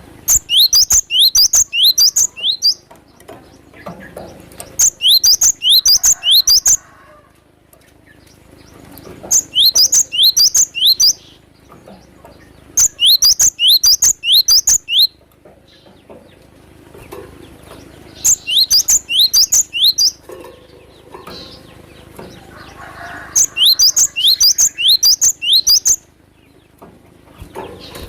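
Cinereous tit (gelatik batu) singing in six bursts of about two seconds each. Each burst is a quick run of sharp, high notes that fall in pitch, with a few seconds of quieter background between bursts.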